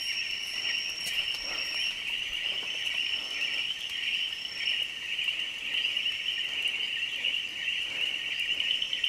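A dense, steady chorus of small frogs calling after a day of rain, many high-pitched calls overlapping into one continuous sound, with a thin higher whistle coming and going above it.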